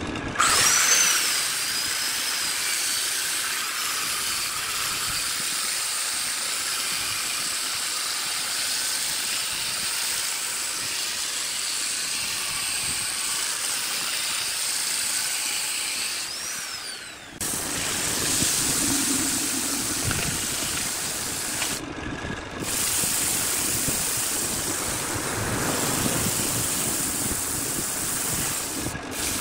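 Wood lathe running with a wooden vase spinning on it while it is sanded: a steady hiss of abrasive on the turning wood, first with a handheld power sander whose motor pitch glides briefly near the start, then, after a sudden change a little past halfway, by hand with sandpaper.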